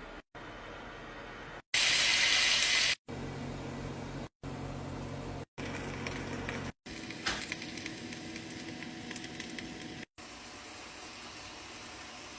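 Cooking sounds in short cut-together clips: food sizzling and hissing in a hot pan, with a louder hiss about two seconds in and crackling pops about seven seconds in.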